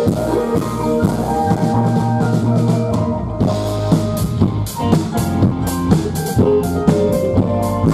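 Live rock band playing: drum kit with cymbal and bass-drum strokes, electric guitars, bass guitar and keyboard. The cymbals drop out for a moment about three seconds in.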